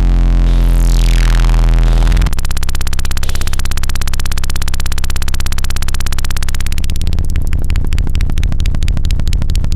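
Loud electronic noise music: a deep synthesizer drone with a high tone sweeping downward, which cuts off abruptly about two seconds in to a harsh, rapidly pulsing buzz that turns choppy and stuttering near the end.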